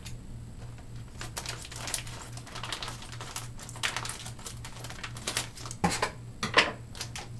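Scissors snipping open a sealed plastic accessory bag, with the plastic crinkling: a run of small clicks and rustles, a few louder snips about six seconds in.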